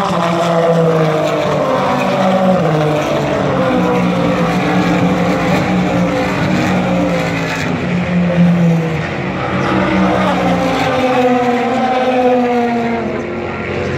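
IMSA sports racing cars going past at speed on the front straight, one after another. Each engine note falls in pitch as the car passes, over a steady background of engines out on the circuit.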